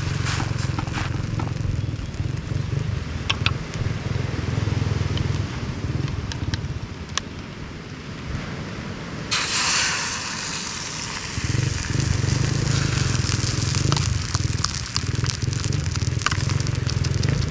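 Buttered bread with sausage and cheese frying in a pan: sizzling with scattered crackles over a low steady rumble, which drops away for a few seconds midway. A brighter hiss sets in suddenly about nine seconds in.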